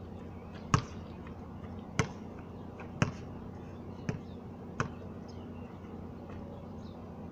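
Basketball bouncing on a concrete court: five sharp bounces about a second apart, stopping about five seconds in.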